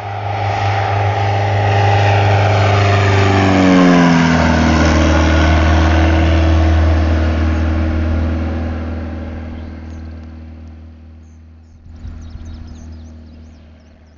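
Aviat Husky light aircraft's piston engine and propeller on a low flyby: the sound swells to a loud steady drone, drops sharply in pitch as the plane passes about four seconds in, then fades away as it recedes.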